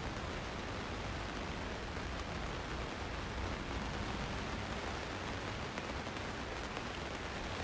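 Steady rain falling on leaves and plants, an even hiss with no single drops standing out.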